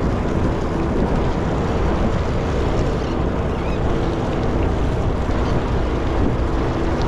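Sportfishing boat ambience: wind on the microphone and water noise over the boat's steady, low engine hum.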